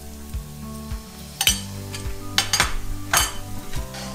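A metal fork clinks sharply against an iron pan and a bowl several times as fennel seeds go into hot coconut oil, with a light sizzle of the oil. Background music with a steady beat runs underneath.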